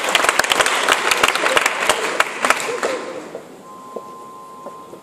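Audience applause dying away over about three seconds. A faint steady tone comes in near the end.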